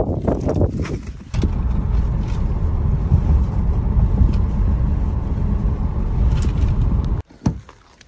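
Wind and road noise inside a moving car with a window open: a steady, heavy low rumble that cuts off suddenly about seven seconds in. A few brief knocks and rustles come in the first second.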